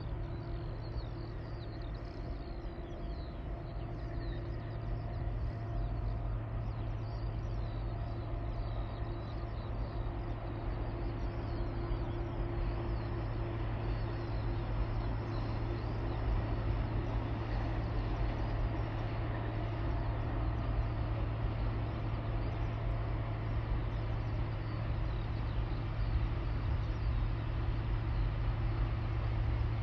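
Diesel locomotives of an approaching Tasrail empty coal train: a low, steady engine drone that grows gradually louder as the train nears.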